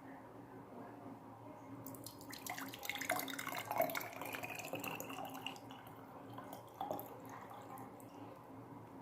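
Herbal saga-leaf decoction being poured through a strainer into a container. A splashing trickle starts about two seconds in, rises in pitch as the container fills, and tapers off about six seconds in. A single short knock follows about seven seconds in.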